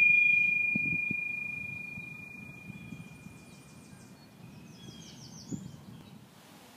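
A single high bell-like ding ringing out and slowly fading away over about four seconds. Faint high chirps come through near the middle and again later.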